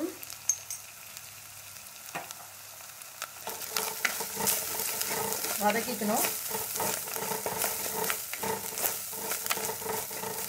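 Chopped onions and ground spices sizzling in gingelly oil in a clay pot, being sautéed. From about three and a half seconds in, a wooden spatula stirs them, scraping and clicking against the pot's sides over the sizzle.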